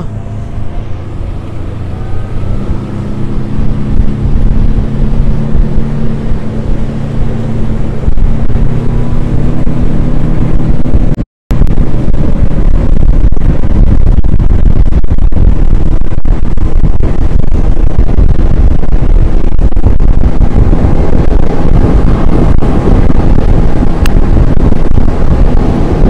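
Outboard motor pushing a loaded fishing skiff at speed, with water rushing past the hull and heavy wind buffeting the microphone. The engine's steady hum is plainest in the first several seconds. After that the wind and water noise swamp it, and the sound breaks off for a split second about eleven seconds in.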